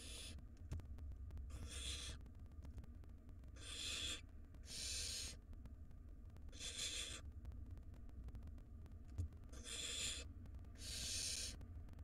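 Barn owl nestlings giving their hissing, snore-like begging calls. About seven breathy hisses, each about half a second long, come at uneven intervals.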